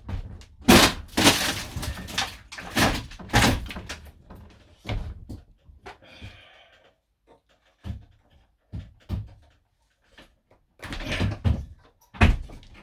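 Irregular knocks, thuds and clatter from hands handling parts and tools during wiring work inside a camper van. The sounds come in a dense run over the first few seconds, turn sparse in the middle with a short rustle, and pick up again near the end.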